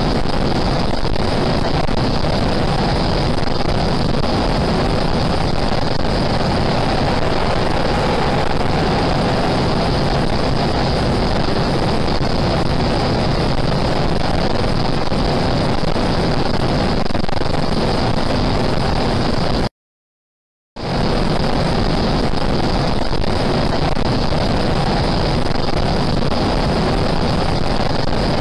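Steady road and wind noise inside a moving car, picked up by a dashcam. It cuts out completely for about a second, about twenty seconds in, then resumes unchanged.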